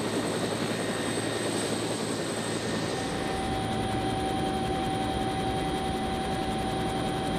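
Utility helicopter's turbine engine and rotors running, a steady rushing noise with a high whine, heard from the open cabin. A second steady whine joins about three seconds in.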